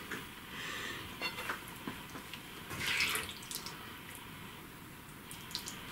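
Saucy chicken jalfrezi being spooned onto a ceramic plate: faint wet plops and a few light clicks, with a soft louder swish about three seconds in.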